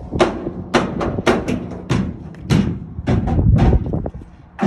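Used tires being shoved and packed into a tightly loaded shipping container: an irregular string of dull thumps and knocks, rubber hitting rubber.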